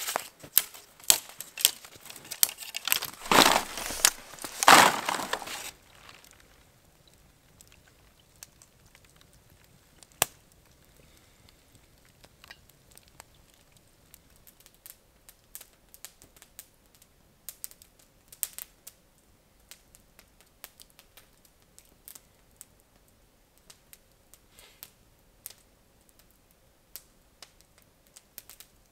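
Dry firewood sticks being snapped and broken by hand, a quick run of sharp cracks with two loud, longer breaks, stopping about six seconds in. After that only faint, scattered crackling from a campfire.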